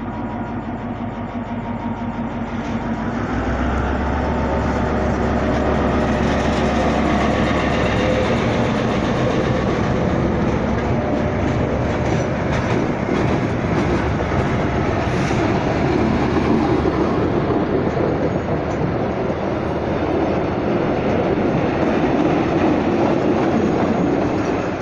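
G22CU-2 diesel locomotive passing with its engine running in a steady low drone, followed by a long string of flat wagons rolling by, wheels rumbling and clattering over the rail joints, loudest in the second half.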